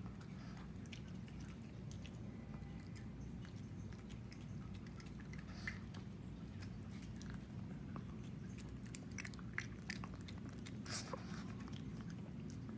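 A Shih Tzu eating sardines and rice off a plate: irregular small chewing and smacking clicks, a few sharper ones in the second half, over a steady low hum.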